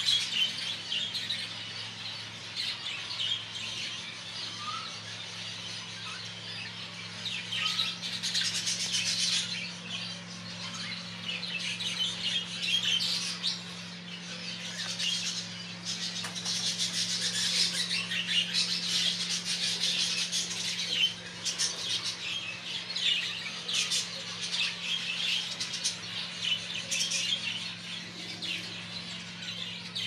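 Budgerigars chattering: a continual stream of high chirps and warbles, busier in stretches, over a steady low hum.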